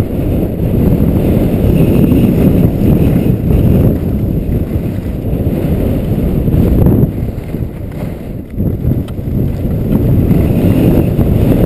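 Wind buffeting a skier's point-of-view camera microphone at speed downhill: a loud, low, constantly fluttering rush that eases for a moment about two-thirds of the way through.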